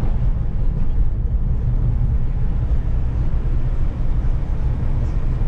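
Steady low rumble of road and tyre noise heard inside the cabin of a moving car.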